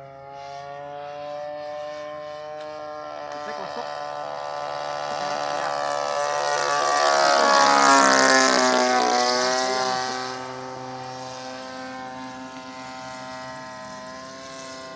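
DLE 35cc single-cylinder two-stroke petrol engine of a radio-controlled Corsair model plane in flight with its propeller. It makes a low pass, getting louder to a peak about eight seconds in, its pitch dropping as it goes by, then fading to a steady drone as it flies away.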